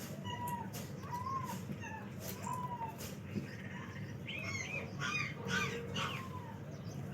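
Birds calling: a short call repeats roughly once a second, then a quicker run of higher, chirping calls about four seconds in.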